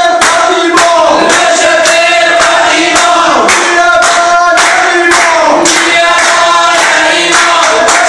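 Crowd of protesters chanting slogans in unison on a steady pitch, with rhythmic clapping.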